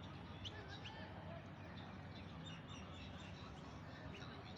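Birds chirping in short, scattered calls with quick pitch sweeps, over a steady low hum.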